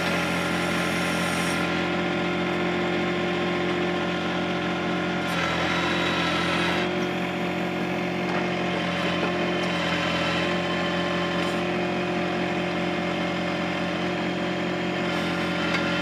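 John Deere 1025R's three-cylinder diesel engine running steadily at wide open throttle while the 260B backhoe is worked through its digging strokes.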